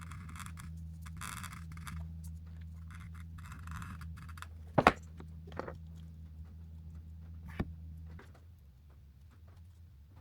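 Short scraping and rubbing strokes of hard plastic parts being handled and fitted together, then a sharp knock about five seconds in and a lighter click later, over a steady low hum that stops about eight seconds in.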